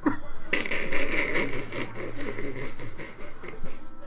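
Stack of hard plastic card cases being handled, the plastic rubbing and scraping against itself for about three seconds.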